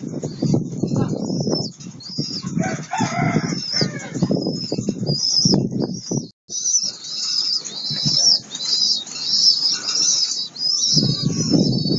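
Small birds chirping in a continuous high twitter, with uneven low flutters and knocks underneath. The sound breaks off for a moment about six seconds in.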